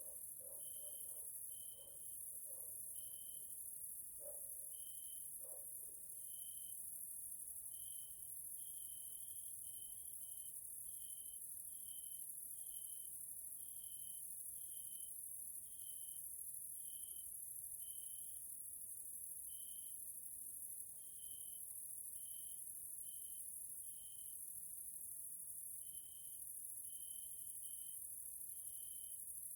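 Evening chorus of singing orthopteran insects: a continuous, very high-pitched shrill buzz, with short, lower-pitched chirps repeating about once a second over it. A few faint low pulses sound in the first six seconds.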